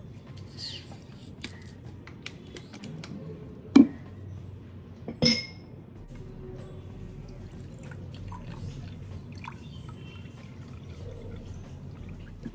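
A plastic bottle being handled and uncapped and liquid poured into a drinking glass, with a sharp knock about four seconds in and a ringing glass clink a second and a half later.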